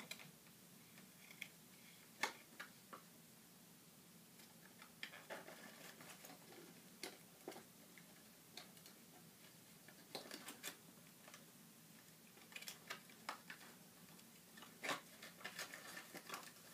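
Faint, scattered clicks and snips of a diecast toy car's plastic blister packaging and twist ties being cut and pried open, a few seconds apart and irregular.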